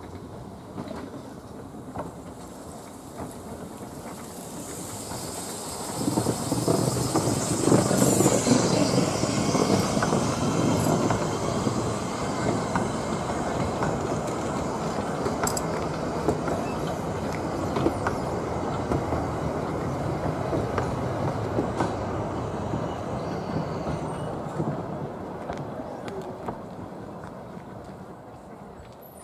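Narrow-gauge steam train, Fletcher-Jennings 0-4-0WT No.2 Dolgoch with vintage carriages, pulling away and passing close by. The locomotive's steam and running noise swell sharply about six seconds in, then the carriages rumble past with clicking over the rail joints and some high wheel squeal, fading near the end.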